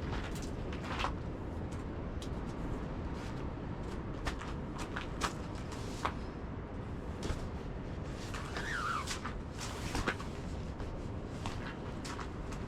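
Strong wind rumbling on the microphone, with scattered short clicks and knocks and a brief squeak about nine seconds in.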